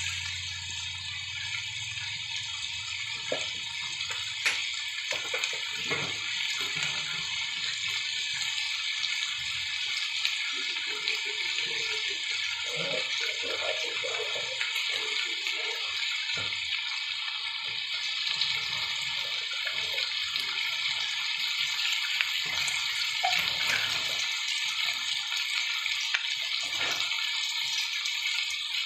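Pork belly and garlic sizzling steadily in oil in a wok, with scattered light clicks and pops.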